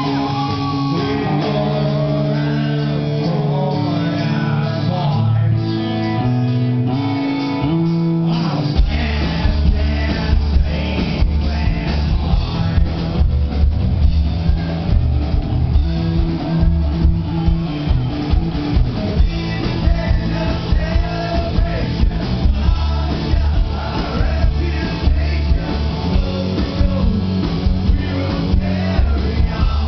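Live rock band playing at full volume in an audience recording. For about the first eight seconds electric guitar chords ring with no drums or bass. Then bass and drums come in hard and the whole band drives on.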